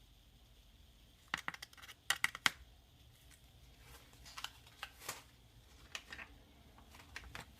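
Small sharp clicks and taps of a measuring spoon against spice containers and the bowl while spices are measured out: a quick run of about half a dozen clicks between one and two and a half seconds in, then scattered softer taps.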